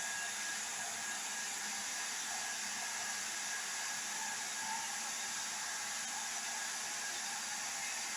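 Blow dryer running steadily: an even, unbroken rushing hiss with a faint high whine.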